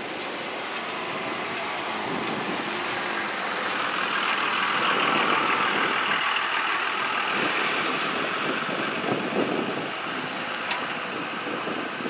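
Engine noise from a John Deere compact excavator working beside a dump truck, steady under a rushing noise that swells over the middle few seconds and eases near the end.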